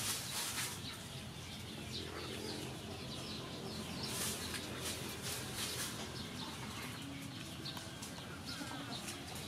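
Outdoor background of faint birds and chickens calling at a distance over a steady low hiss.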